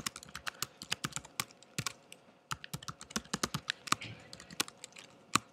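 Typing on a computer keyboard: quick, irregular keystroke clicks with a short pause about two seconds in.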